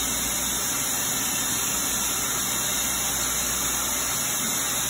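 Forced-air pet grooming dryer running steadily: a constant, even rush of blown air.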